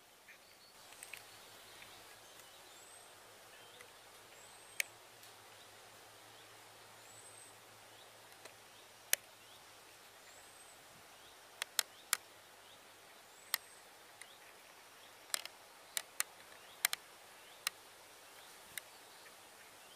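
Quiet lakeside outdoor ambience with a bird giving a short, high, arched chirp every few seconds. Scattered sharp clicks are the loudest sounds, coming more often, several in quick succession, in the second half.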